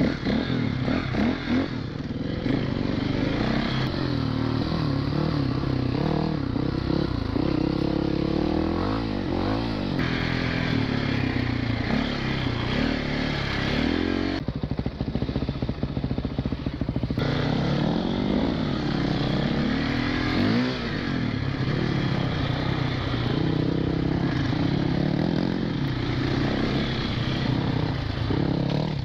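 Four-stroke single-cylinder enduro dirt bike engine being ridden off-road, its revs rising and falling constantly as the throttle opens and shuts. Just past the middle it eases off for a couple of seconds before pulling again.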